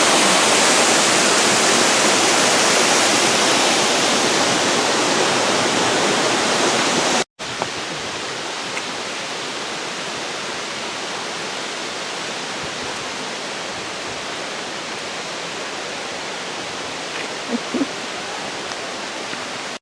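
Waterfall cascading down rock, a steady rushing hiss. About seven seconds in it cuts out for an instant and comes back somewhat quieter.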